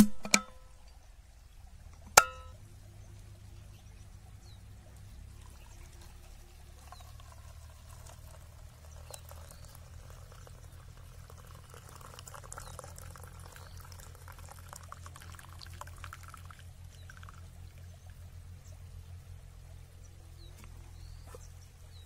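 A drink poured from a stainless steel vacuum flask into its cup lid, a trickling pour lasting several seconds in the middle. Before it, a few sharp clicks near the start as the flask's stopper is worked open.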